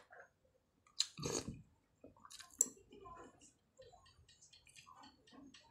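A person eating with a spoon: a sharp clink about a second in, then quiet chewing with many small wet clicks.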